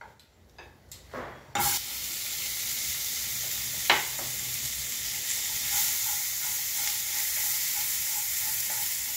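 Chopped onion sizzling in hot oil in a frying pan: after a few soft knocks, a steady sizzle starts suddenly about one and a half seconds in as the onion goes into the oil. It is stirred with a silicone spatula, with a single sharp tap against the pan about four seconds in.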